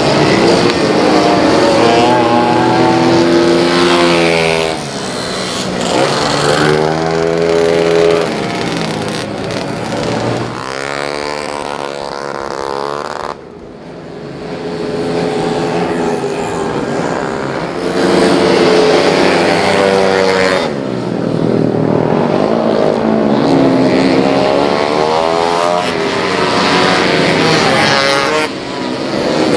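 Tuned 130cc racing scooter engines revving hard on a short circuit, the engine note climbing as the bikes accelerate and dropping away as they pass, over and over, with a brief lull about halfway through.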